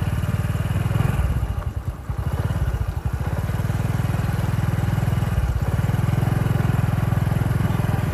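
Steady low rumble of wind buffeting the microphone, with a fast flutter, easing briefly about two seconds in and again about five and a half seconds in.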